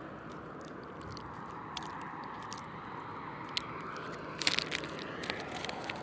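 Steady road traffic noise with a vehicle passing, swelling and fading in the first few seconds. A run of crunchy clicks comes a little past the middle.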